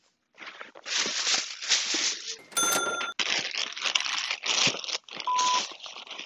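Edited scene-change sound effects: a rushing, crackling noise with a brief ringing chime about two and a half seconds in, then a short electronic beep near the end, the first of a countdown.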